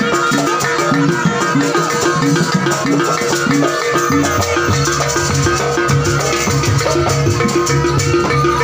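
Jaranan gamelan music playing with a steady rhythm and rattling percussion; a deeper low beat joins about four and a half seconds in.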